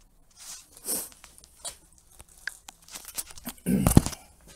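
Handling noise as an air rifle is moved about on a bench: scattered clicks and rustling, then a heavy knock near the end.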